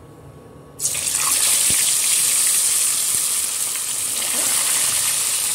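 Yogurt-marinated chicken pieces going into hot oil in a steel pan: a loud frying sizzle breaks out suddenly about a second in and holds steady.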